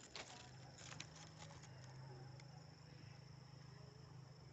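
Near silence: faint outdoor ambience with a steady high-pitched whine and a low hum, broken by a few faint clicks.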